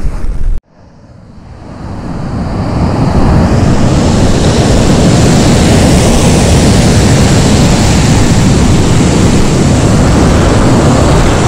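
Ocean surf, a loud steady noise. About half a second in, it cuts out suddenly and then fades back up over two to three seconds.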